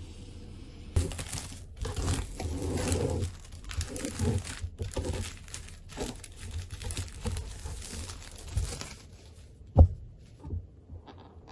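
Clear plastic shrink-wrap being torn and peeled off a cardboard iPad box, crinkling for several seconds. A single sharp knock comes near the end, followed by a few light taps.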